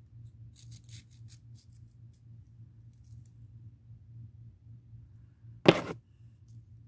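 Hands handling small craft pieces: a few faint crinkly ticks about a second in, then one loud, brief knock near the end, over a faint low hum.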